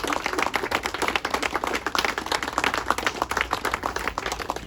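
A crowd applauding: many people clapping together, easing off slightly near the end.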